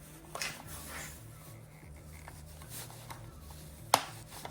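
Hands working a motorcycle tail light and its plastic mounting loose: quiet rubbing and light ticks, then one sharp plastic snap near the end as a retaining clip pops out.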